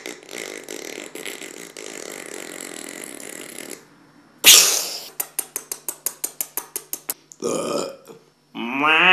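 A man's comic mouth noises: a hissing rush, then a sudden loud burst about four and a half seconds in. Next comes a quick run of clicks, about seven a second, and near the end a long, loud belch whose pitch wavers.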